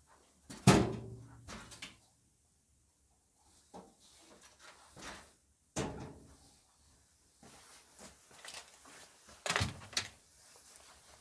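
Knocks and clunks from parts of a dryer cabinet being handled during repair work. A loud clunk about a second in rings on briefly, followed by softer knocks and rattles and another clunk near the end.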